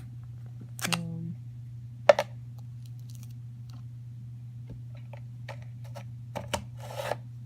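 Plastic slime container being opened and handled: one sharp click about two seconds in, then scattered small clicks and brief rustles.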